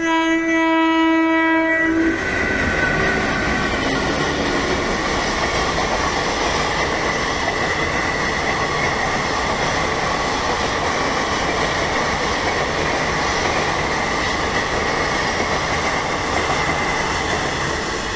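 Electric locomotive horn sounding for about two seconds. Then an express passenger train runs past at speed: a steady, loud rush of wheels on rail with clickety-clack, easing off near the end as the last coaches go by.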